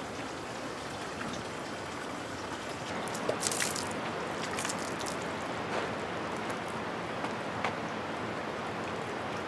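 Water splashing and trickling as hands wash in a hollowed-log trough, over a steady hiss of water; the loudest splashes come about three and a half seconds in.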